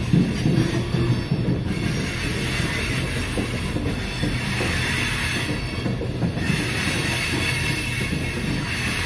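Freight train of open-top hopper cars rolling past: a steady rumble of steel wheels on the rails.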